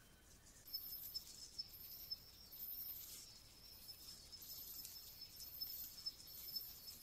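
Night insects calling: a steady high, thin trill with a still higher buzz that swells and breaks off about once a second, starting under a second in. A few faint ticks sound among it.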